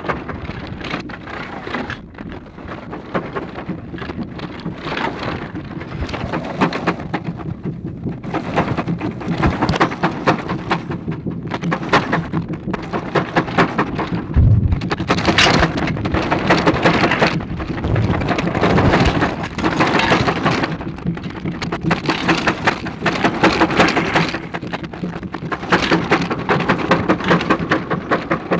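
Loud crackling noise from a badly deteriorated 16mm magnetic film soundtrack, dense and irregular, with a couple of low thumps around the middle.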